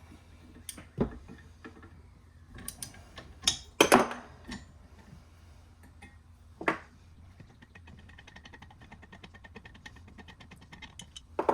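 Steel parts clinking and knocking as they are handled on a workbench, the loudest knock about four seconds in and another near seven seconds, over a low steady hum. Faint rapid ticking follows for a few seconds near the end.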